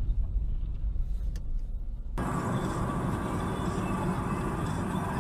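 Road noise inside a moving car: a steady low rumble of tyres and engine. About two seconds in it switches abruptly to a different, hissier mix of road and traffic noise.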